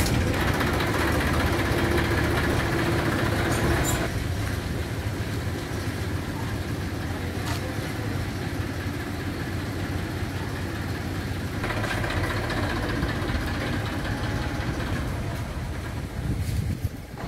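TAFE farm tractor's diesel engine running at idle, a steady low drone. It is louder for the first four seconds, then drops and comes up a little again later on.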